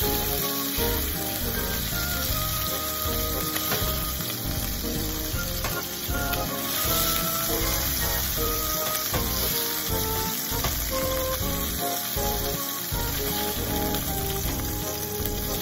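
Bite-sized chicken pieces sizzling as they brown in hot cooking oil in a nonstick frying pan, with a wooden spatula stirring and scooping them out. Light background music plays underneath.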